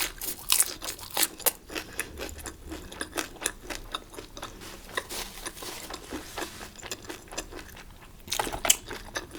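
Close-up chewing of chicken diamond: a steady run of irregular crunchy clicks, several a second.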